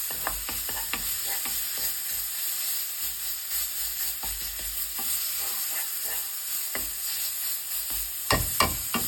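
Anchovies and chilli peppers stir-frying in a pan, sizzling steadily while a utensil stirs them, with short scraping clicks against the pan. A few louder knocks come near the end.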